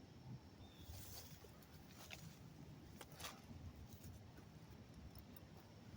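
Near silence, with a few faint rustles and soft ticks about one, two and three seconds in.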